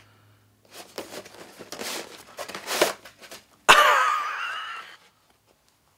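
Paper and cardboard packaging rustling as a shoebox is opened and its contents pulled out, for about three seconds. Then comes a loud, drawn-out wheezy laugh from a man that fades away.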